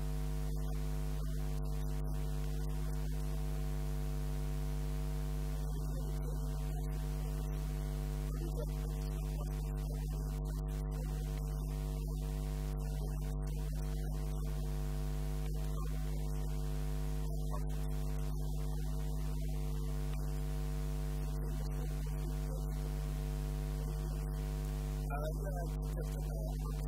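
Steady electrical mains hum: a constant low buzz with a stack of overtones that does not change.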